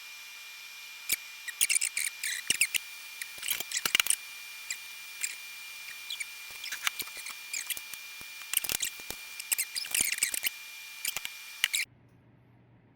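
Scattered sharp clicks and scratchy rustles of small objects being handled, over a steady high-pitched whine; everything cuts off suddenly near the end, leaving a low hum.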